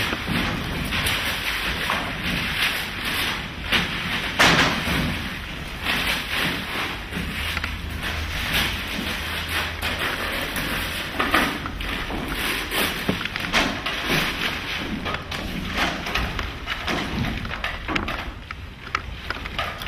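Irregular knocks, thuds and rustling from performers moving and handling things on a stage during a live contemporary dance performance.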